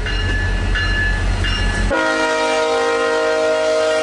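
Train rumbling past with brief high-pitched squeals. About two seconds in, the rumble cuts off and a locomotive air horn sounds one long, steady blast.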